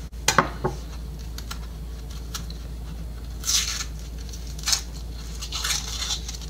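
Dry onion skin crinkling and tearing in short scratchy bursts as the papery outer layer of a white onion is peeled off by hand. A few light knocks come near the start.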